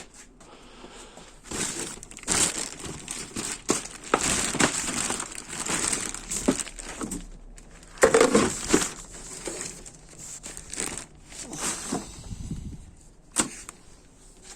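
Crinkling and rustling of the parts bags in a transmission rebuild kit being rummaged through by hand, with scattered small clicks, loudest a little past the middle.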